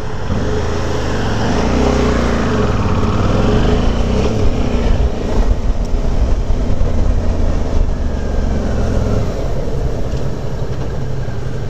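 Motorcycle engine running while riding, its revs dipping and climbing again a few seconds in, over a steady rush of road and wind noise.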